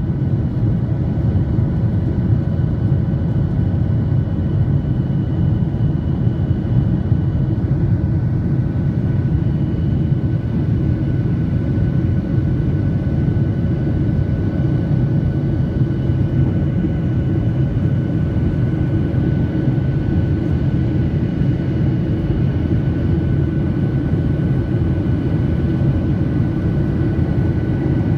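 Jet airliner in flight, heard from a cabin window seat over the wing: a steady low roar of engines and airflow, with a few thin, steady whining tones on top.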